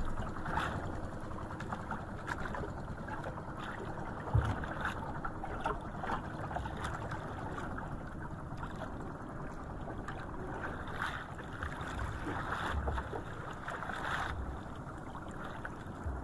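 Steady wash of water and wind around a small outrigger fishing boat at sea, with occasional light knocks and clicks from line handling in the boat and a dull thump about four seconds in.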